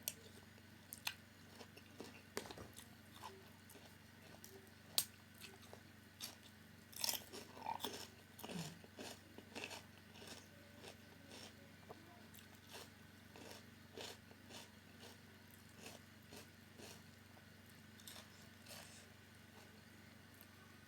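Close-up eating sounds: crisp bites and chewing of a Thai pounded cucumber salad with fresh shrimp. Short crunches come on and off, with a run of louder ones about seven to nine seconds in.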